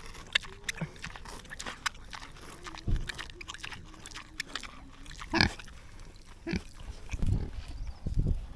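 Farm livestock making short low calls, about three seconds in, at five and a half seconds and twice near the end, over a faint wavering tone and scattered clicks and knocks.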